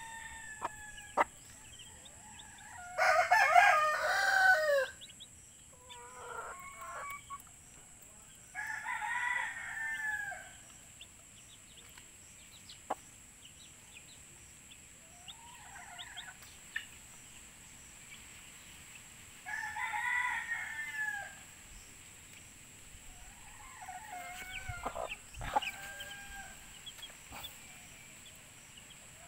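Rooster crowing several times, a drawn-out call every few seconds, the loudest about three seconds in, with faint short chick peeps between the crows.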